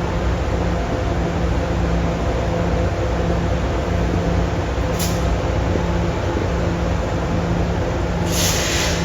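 Idling train locomotive giving a steady low engine hum, with a short hiss of air about five seconds in and a longer air hiss near the end.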